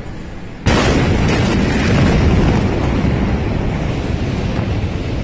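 The 2020 Beirut port explosion of stored ammonium nitrate: a sudden loud blast about a second in as the blast wave reaches the phone, becoming a steady, heavy roar that hardly fades over the following seconds.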